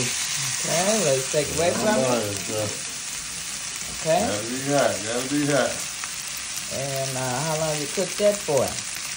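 Seasoned T-bone steak sizzling in a smoking-hot Lodge cast iron skillet: a dense, loud frying hiss that eases a little after the first couple of seconds. A person's voice is heard faintly in three short stretches.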